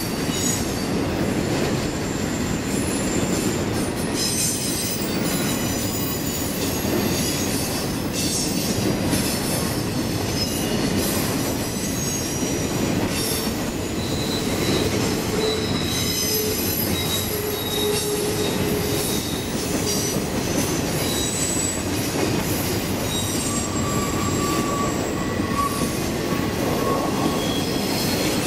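Intermodal freight train's cars, trailers on flatcars and then double-stack container cars, rolling past on a curve: a steady rumble and clatter of wheels on rail. Over it, high-pitched wheel squeal comes and goes, more of it in the second half, as the wheel flanges grind against the curved rail.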